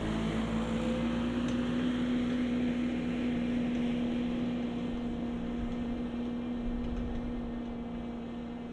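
Jungheinrich TFG 425s LPG forklift driving off at a steady speed, its engine holding one even note that slowly fades as the truck pulls away.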